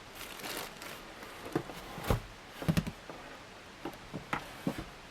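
Scattered light clicks and knocks of small parts being handled, about six in all. The loudest is a dull knock about two seconds in, followed by a quick pair just under three seconds in.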